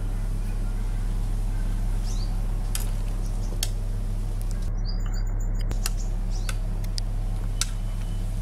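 A steady low hum runs under everything, with scattered sharp clinks of a metal ladle stirring in an aluminium pot of soup and a few short bird chirps.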